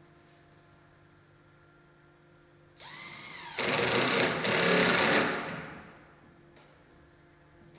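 Power drill spinning up about three seconds in, running under load for roughly two seconds while driving a screw into wood, then winding down.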